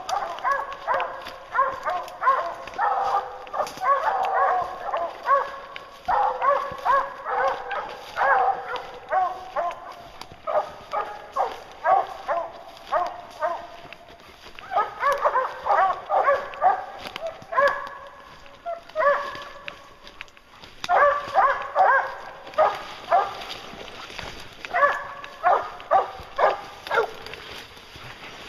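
A pack of English hounds barking and baying at a treed black bear, in quick runs of overlapping barks with short lulls between them.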